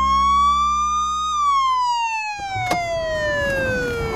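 Police car siren in its wail: one slow rise in pitch, then a long falling glide. A low steady hum under it cuts off about two and a half seconds in, and a single sharp click follows.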